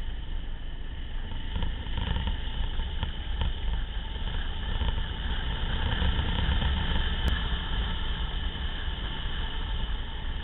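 A vehicle driving fast on a loose dirt track: steady engine and tyre noise under heavy wind rumble on the camera microphone.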